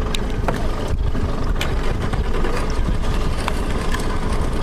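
Boat engine idling as a steady low rumble with a faint steady hum, and a few light knocks.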